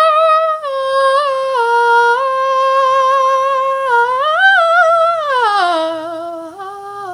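A woman's voice humming a wordless tune in long held notes. It steps up to a higher note about four seconds in, then glides down to a low note near the end.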